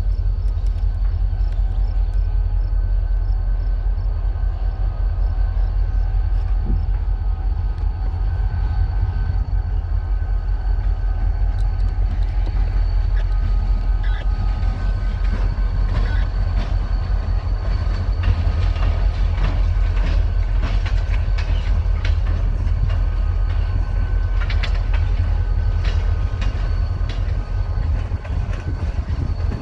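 Norfolk Southern diesel freight train rolling past, with a steady low rumble throughout. From about halfway through, the wheels click more and more often over the rail joints as the locomotive, tank cars and hoppers go by.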